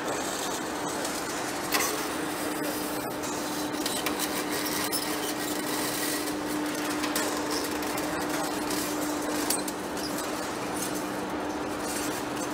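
Large metal lathe turning a big metal workpiece under the cutting tool: a steady machine hum with one constant tone, broken by a few short clicks.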